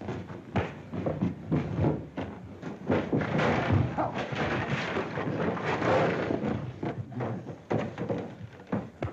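Sounds of a scuffle in the dark: a run of thuds and knocks as bodies struggle, thickest and loudest in the middle and thinning out near the end.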